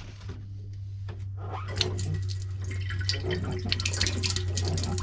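Water from a newly installed galley foot pump splashing and dripping into a stainless steel sink, building up over the first couple of seconds: the replacement pump is delivering water.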